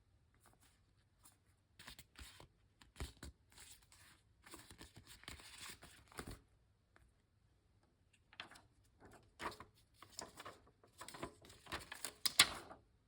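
Typing on a Chilkey ND75 mechanical keyboard with lubed Gateron Smoothie switches, a polycarbonate plate and PBT keycaps: two runs of quick keystroke clacks, each about four seconds long, separated by a short pause, with the loudest strokes near the end.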